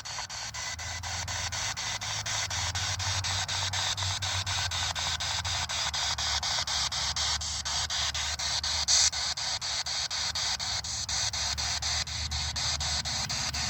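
Spirit box (radio sweep device) hissing static, chopped into rapid even pulses several times a second as it skips through stations, over a low hum. A brief louder blip about nine seconds in.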